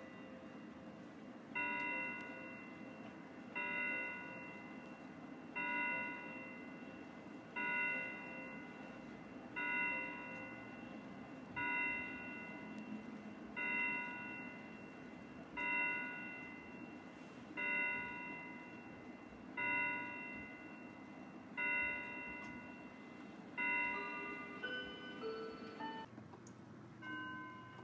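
Howard Miller Langeland mantel clock striking twelve for the hour: twelve ringing bell-like strikes, one about every two seconds, each fading before the next. After the last strike a few different chime notes follow faintly.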